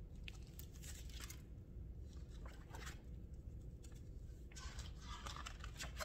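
Faint rustling and crinkling of a hardcover picture book being handled and opened: short scratchy sounds in small clusters.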